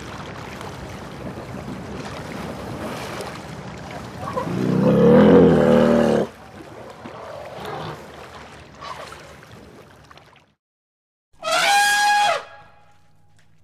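Recorded mammoth trumpeting played by the woolly mammoth display over mall background hubbub: a low, loud call lasting about two seconds, and near the end, after a brief dropout, a short, higher, horn-like trumpet blast.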